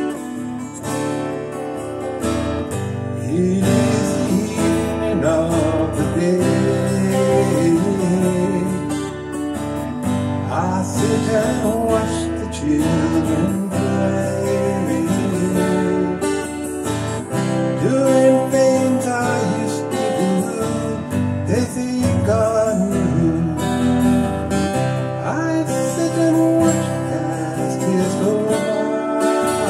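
A man singing to his own strummed acoustic guitar. The guitar keeps going throughout, while the voice comes in and out between lines.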